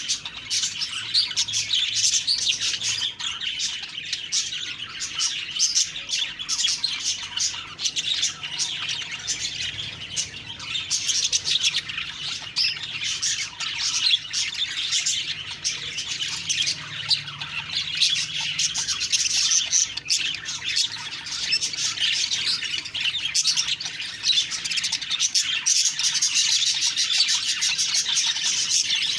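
Budgies (budgerigars) chattering and warbling continuously, a dense mix of quick chirps, tweets and squawks from several birds at once.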